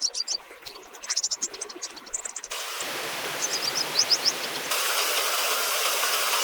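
Birds chirping in short, quick calls. About two and a half seconds in, a steady hiss of rain cuts in abruptly with a few more chirps over it, and about two seconds later it steps up suddenly to a louder, heavier rain.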